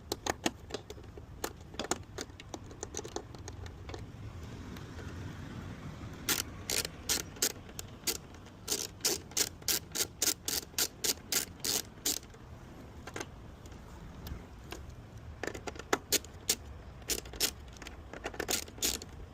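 Hand tools and a fairing screw being worked with runs of quick sharp metallic clicks, about four a second, in two spells with a pause between.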